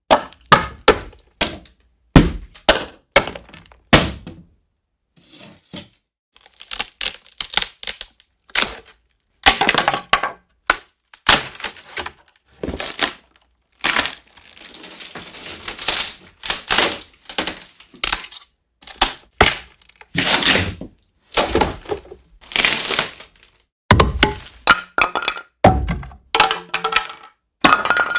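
A sequence of wood sound effects from various types of wood. First come short, sharp wood hits. After a brief pause comes wood breaking, cracking and snapping, including one drawn-out crack about two seconds long. Near the end, pieces of wood are dropped and clatter as they bounce.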